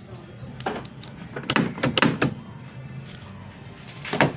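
Power door-lock actuators in a van clunking several times in quick succession, worked by a newly fitted aftermarket keyless-entry remote, then a sharp clack from the outside door handle being pulled near the end.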